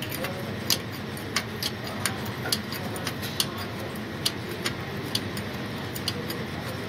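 A steel ring spanner working a threaded fitting in an oil-sump drain hole, giving sharp, irregular metallic clicks about twice a second over a steady low hum.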